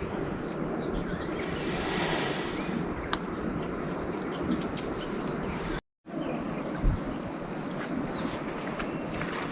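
Small birds chirping in short twittering phrases twice, over a steady outdoor rushing noise, with a single sharp click near the start and a brief cut to silence a little past the middle.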